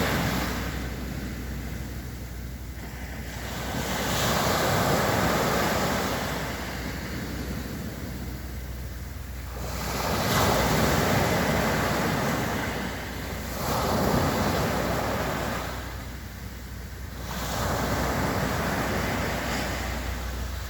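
Sea waves breaking and foaming on a sandy beach, the surf surging and ebbing about every four to six seconds, with a low rumble of wind on the microphone.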